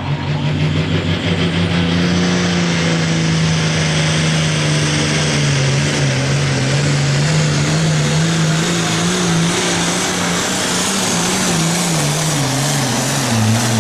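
International Harvester turbocharged diesel pulling tractor at full throttle under heavy load as it drags a weight-transfer sled. The engine holds a loud, steady note, wavers in pitch, and drops lower near the end.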